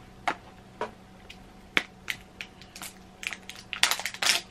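Plastic shrink wrap crackling and tearing as it is picked at and peeled off a tub: scattered sharp crackles, then a denser, louder run of crinkling near the end.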